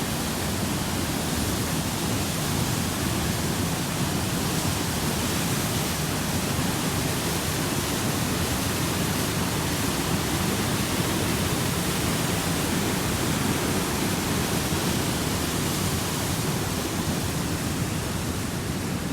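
Steady, unbroken rush of falling or fast-running water, like a waterfall or cascading creek.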